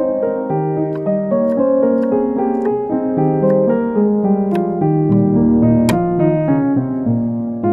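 Background piano music, a melody of changing notes over lower chords, with a few light clicks over it, the sharpest about six seconds in.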